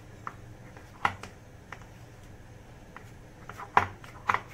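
Cream-and-flour kofta mixture being mixed in a glass bowl: scattered short clicks and taps against the bowl, the loudest a little before the end.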